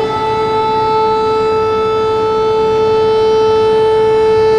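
Electric civil-defence siren at full speed, holding one loud, steady tone after winding up: the warning signal of a civil alert system under test.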